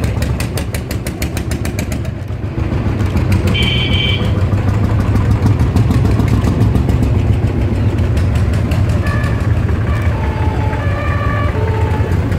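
Vintage tractor engines passing close by: the single-cylinder Lanz Bulldog's rapid, even thumping for the first two seconds, then the steadier low running of a diesel tractor engine.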